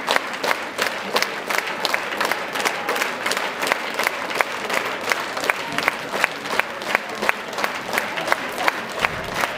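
Theatre audience applauding a curtain call: a dense, steady wash of clapping, with one clapper close by standing out as sharp claps about four a second.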